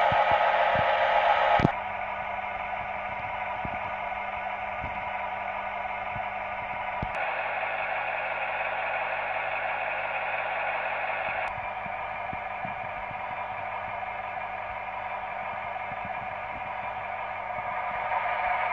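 Steady diesel engine running sound from the sound decoder of a Märklin H0 SVT 04 railcar model, coming tinny through its small onboard loudspeaker. The tone shifts abruptly a few times.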